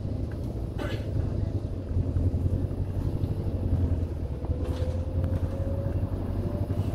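Interior running noise of a Wright Gemini 3 double-decker bus on a Volvo B5TL chassis on the move: a steady low engine drone. About four seconds in, a faint whine slowly rises in pitch, and two brief rattles or knocks come about a second in and near the five-second mark.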